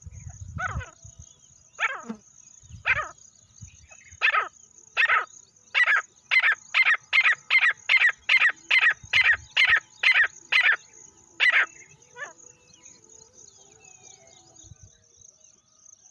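Francolin (teetar) calling: a run of short, loud call notes, about a second apart at first, quickening to two or three a second, then stopping about twelve seconds in.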